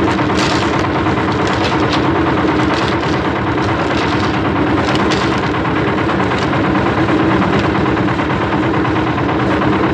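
Mechanically fed cement mixer running steadily on its engine, with a fast, even low pulsing. Short metallic clatters break through a few times.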